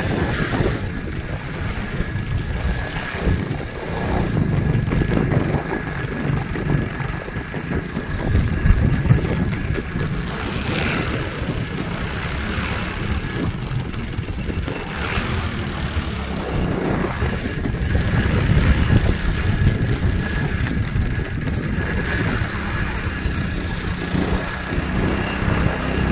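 Small 4 hp petrol longtail mud motor running steadily at low throttle while pushing an inflatable paddleboard, kept at about a quarter throttle because any more stalls it for lack of power. Wind buffets the microphone over the motor's hum.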